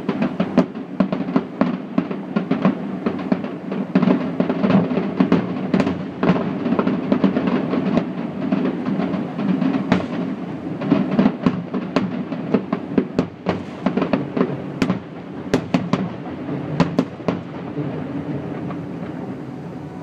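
Aerial fireworks bursting in rapid, irregular bangs, a dense barrage that thins out over the last few seconds as the display ends.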